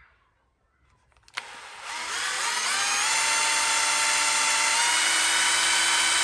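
Cordless drill motor starting about a second in and spinning up with a rising whine, then running steadily as a small bit bores a pilot hole into a PVC pipe elbow.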